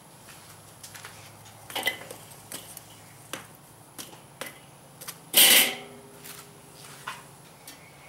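Charcoal briquettes being added by hand to the coals of a kettle grill at the side of the cooking grate: scattered light clinks and knocks, with one louder clatter about five and a half seconds in.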